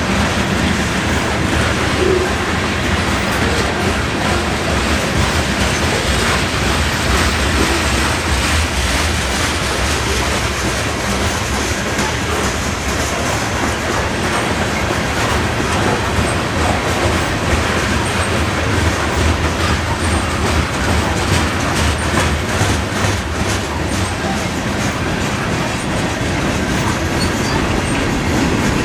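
A train passing close by: a steady, loud rumble of wheels on the rails, with clicking over the rail joints.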